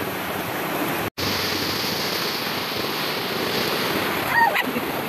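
Steady rush of sea waves washing on the shore. The sound breaks off for an instant about a second in, and a short high chirp comes near the end.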